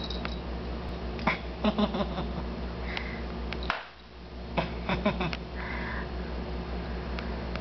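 Two basset hound puppies play-fighting, with two brief high squeaks and scattered clicks and knocks over a steady low hum.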